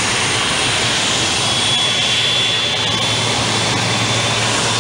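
Jet engine running steadily, a constant rushing noise with a high whine that comes out more clearly about two seconds in.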